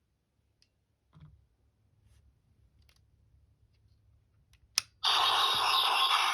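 Plastic clicks from handling the DX Chilsonite Sword toy, a sharp button click near the end, then the toy's electronic sound effect starting loudly from its small built-in speaker.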